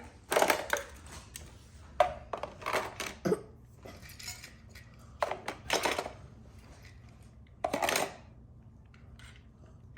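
Small toy cars clattering and clinking as they are put into a toy truck or container by hand: a dozen or so irregular knocks, some in quick bunches.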